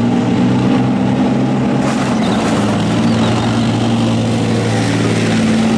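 Leopard 2 main battle tank driving, its V12 diesel engine and steel tracks running loud and steady.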